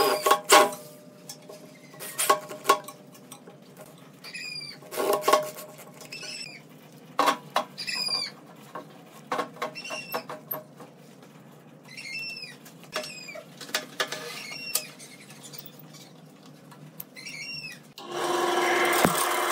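A drill runs in short bursts, driving screws into the faceplate, among handling knocks and high, short squeaks. About eighteen seconds in, a wood lathe switches on and runs with a steady hum.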